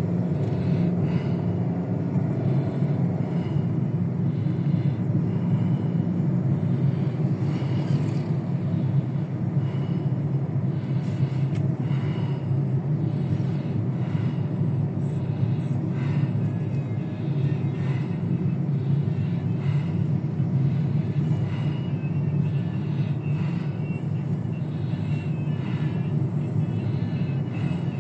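Steady low engine and road rumble inside the cabin of a moving car.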